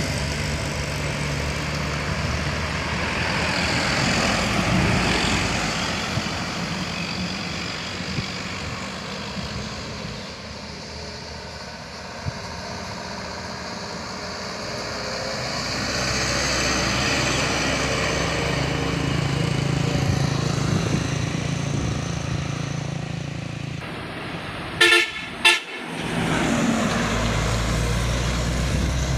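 Trucks and motorcycles driving through a sharp bend, their engines running and swelling as a truck comes close. About 25 seconds in, a vehicle horn gives two short toots.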